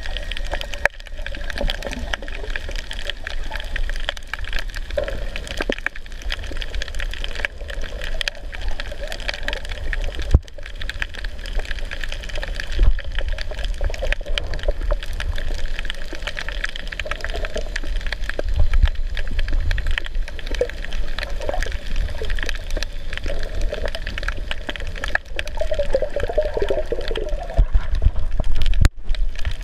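Water swirling and rushing around a camera filmed underwater, a steady muffled wash with a heavy low rumble and a few brief knocks.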